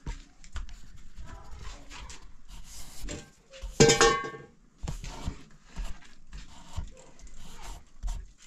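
A domestic animal's cry: one loud call about half a second long, near the middle, among scattered light clicks and knocks.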